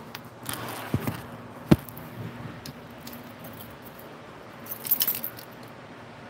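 Handling noise on a phone microphone: a rustle, a sharp knock about a second and a half in, and a brief rattle of quick clicks about five seconds in, over a steady low hum.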